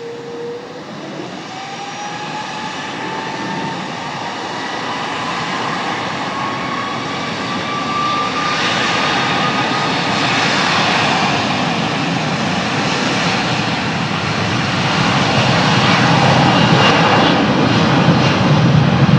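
Airliner jet engines spooling up, a whine rising steadily in pitch over a roar that grows louder, typical of thrust building for the take-off.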